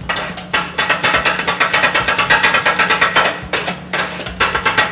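Two flat metal kottu blades chopping on a metal griddle in a rapid, rhythmic clatter of ringing strikes, cutting roti and its fillings into Sri Lankan kottu.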